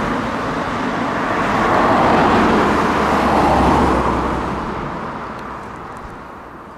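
A road vehicle passing by: its tyre and engine noise swells about two to four seconds in, then fades away.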